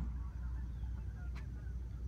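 Outdoor ambience: a low steady rumble with faint short bird calls over it and a single click about a second and a half in.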